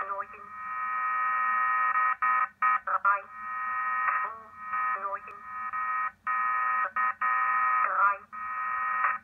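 Shortwave signal of the German-language numbers station G06, heard through a WebSDR receiver: a steady buzzing tone that breaks off briefly every one to two seconds, over faint background hum.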